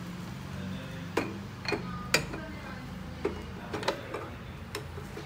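Desktop hole-punch machine's lever handle and punch mechanism clicking and clacking as it is worked by hand: about eight sharp, irregular metallic clicks, the loudest about two seconds in, over a low steady hum.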